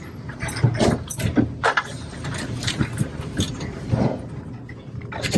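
Irregular plastic clicks and knocks of a camera's plastic cover being handled and fitted into place, over a steady low hum.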